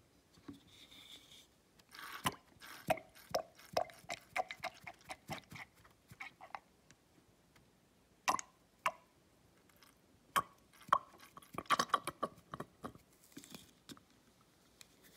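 Black ink poured from an upturned refill bottle into an ink tank's refill hole, giving an irregular run of small gurgling pops and clicks. They come in two bunches with a lull between them.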